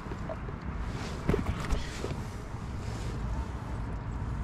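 Steady low wind rumble on the microphone, with a couple of light knocks about a second and a half in as a caught bass is handled against the kayak's deck and measuring board.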